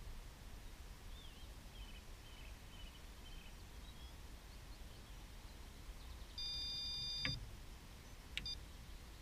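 Single electronic bleep from a carp fishing bite alarm, held for just under a second and ending with a click, followed by a short blip about a second later, over faint dawn birdsong.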